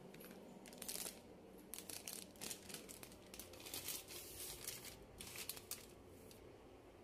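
Plastic food packet crinkling as it is handled, in several short rustling flurries.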